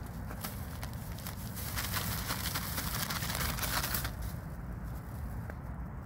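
Rustling and crackling in a thicket as someone pushes into the undergrowth, strongest from about two to four seconds in, over a steady low rumble.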